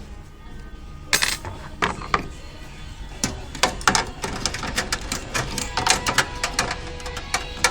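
Irregular clicks and knocks of hard computer parts being handled during assembly, over a faint steady hum.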